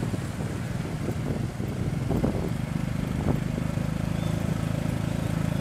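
Motorbike engine running in road traffic, settling into a steady, even drone about halfway through, with a couple of knocks before that.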